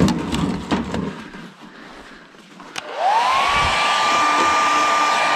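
Electric heat gun switched on about three seconds in: its fan motor winds up in a rising whine, then settles into a steady whine with a rush of hot air. It is warming a frozen pit bike's engine for a cold start. A few handling knocks come before it.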